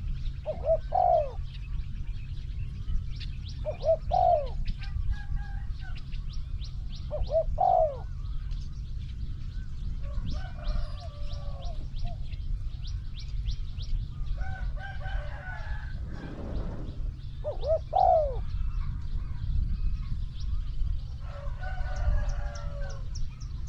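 Spotted doves cooing: short, rolling multi-note coos repeated several times, four of them clear. Other small birds chirp in between, over a fast, high ticking trill.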